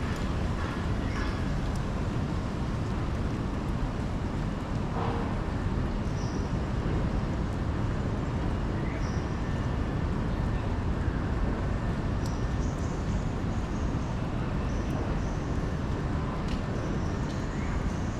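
Steady city street noise: a constant low traffic rumble and hiss, with a few faint short high tones here and there.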